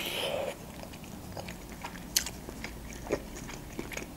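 Close-up mouth sounds of eating a Georgian khinkali dumpling dipped in sauce: a bite at the start, then quiet chewing with a few sharp wet clicks, the loudest about two seconds in.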